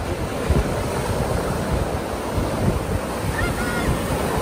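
Ocean surf washing on a beach, with wind buffeting the microphone.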